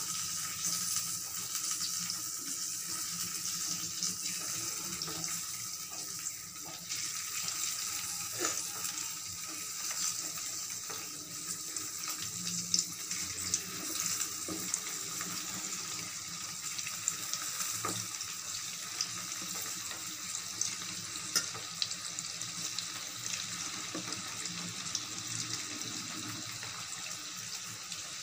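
Hot oil sizzling steadily in a pan as batter-coated cauliflower florets deep-fry, with scattered sharp pops and clicks.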